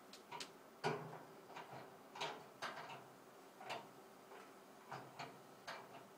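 Metal server rack cabinet door being worked onto its hinges: a dozen or so irregular light clicks and knocks, the loudest about a second in.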